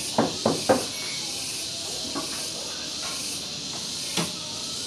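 Steady hiss with a few short, sharp knocks: three in quick succession in the first second, a faint one about two seconds in, and another near the end.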